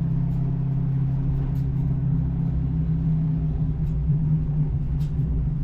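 Small-block Ford V8 of a 1988 Mustang GT idling steadily.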